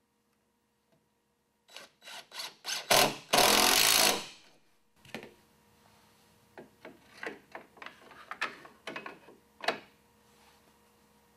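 Cordless drill driving a screw into a wooden post through a light fixture's mounting hole: a few short trigger bursts, then one longer run of under a second as the screw goes in. After that come light clicks and scrapes of parts being fitted by hand.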